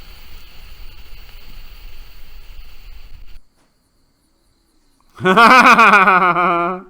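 A man lets out a loud, drawn-out vocal cry of about a second and a half near the end, a startled reaction. Before it, a steady high hiss with a thin high whine cuts off abruptly about three and a half seconds in, followed by a short silence.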